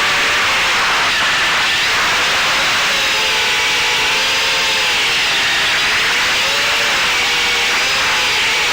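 Eachine Wizard X220 FPV quadcopter's brushless motors and propellers whining in flight, the pitch wavering up and down with the throttle, over a steady rush of wind and prop noise.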